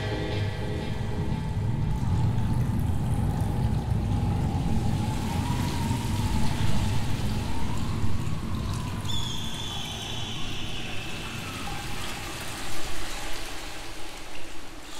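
An ambient interlude of trickling, pouring, water-like noise over a low rumble, with a faint wavering tone. From about nine seconds in, a thin high tone slides slowly downward.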